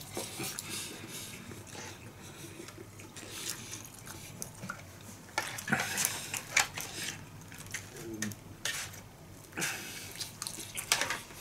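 Eating noises: a person chewing takoyaki, with scattered soft clicks and scrapes of a pick against the plate as he spears the balls.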